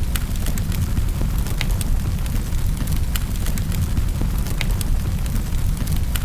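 Wood fire burning in a fireplace: a steady low rumble of the flames with sharp, irregular crackles and pops of burning logs.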